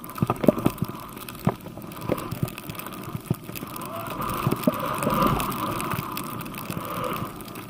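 Skis rushing through deep powder snow on a fast descent, with wind noise on the camera microphone and scattered sharp clicks and knocks; the rushing swells about four seconds in.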